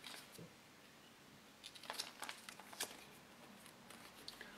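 Faint crinkling of a foil-laminate MRE peanut butter pouch being kneaded in the hands, a few soft crackles about two seconds in, otherwise near silence.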